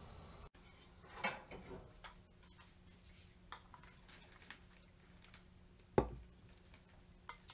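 Metal ladle clinking and scraping in a small pot and against bowls while soup is ladled out, with scattered light clicks and one louder knock about six seconds in.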